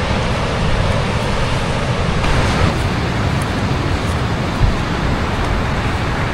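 Steady rushing of wind buffeting the microphone, mixed with the wash of ocean surf.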